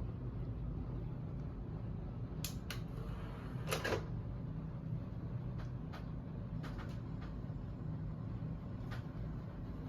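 A steady low hum with scattered short clicks and knocks, a handful in all, the loudest about four seconds in.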